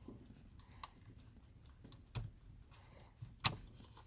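Faint handling noise of a small plastic plug-in flasher relay being turned over in the hand: light rustles and a few soft clicks, with one sharper click about three and a half seconds in.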